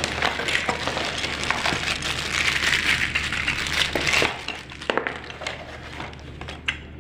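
Parts of a rotary changeover switch being handled: a dense run of clinking, scraping and rattling of metal and plastic pieces for about four seconds, then a few separate clicks.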